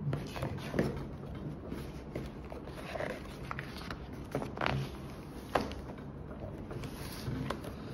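Glossy pages of a large photo book being handled and turned by hand: paper rustling and sliding, with a few sharp page swishes and taps.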